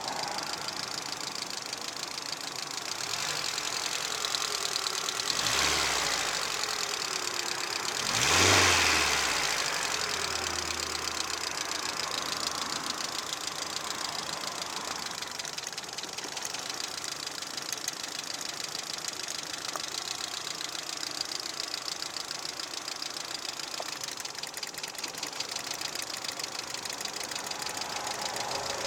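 VAZ-2110 16-valve petrol engine idling with a rapid knock running through it, blipped twice, about five and eight seconds in, then settling back to idle. The knock is the engine fault being shown.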